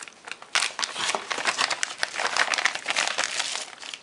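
Clear plastic zip bag and bubble wrap crinkling as a wireless charging pad is slid out of them. Dense crackling with many small clicks starts about half a second in and eases off near the end.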